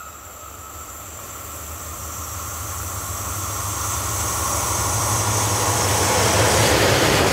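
SBB electric locomotive running light and approaching, growing steadily louder. A steady low hum sits under a rising hiss of wheels on rail, loudest near the end as it draws close.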